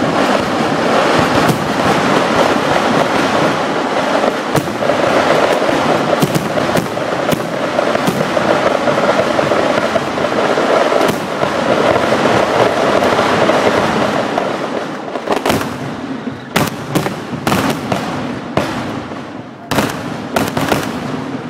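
Temple-festival fireworks going off: a dense, continuous barrage of crackers for about fifteen seconds, then thinning into separate sharp bangs of aerial shells bursting.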